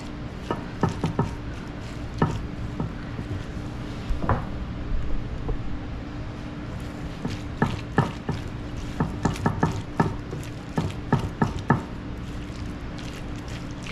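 Coleslaw being stirred with a spatula in a glass bowl: irregular clicks and taps of the spatula against the glass as the shredded cabbage and mayonnaise are mixed, busier in the second half, over a steady low hum.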